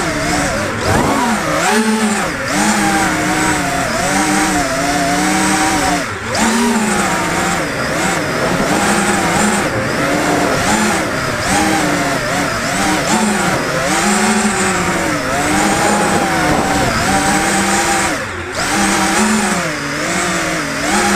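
FPV racing quadcopter's electric motors and propellers whining, the pitch rising and falling constantly with the throttle, with a couple of brief drops in level.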